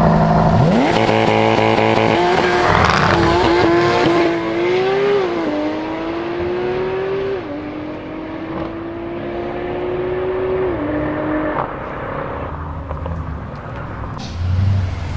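Mercedes-Benz SL63 AMG's twin-turbo V8 launching at full throttle, revs rising steeply and then climbing and dropping back through several upshifts as it pulls away and fades, with a Porsche 911 GT3 RS accelerating alongside.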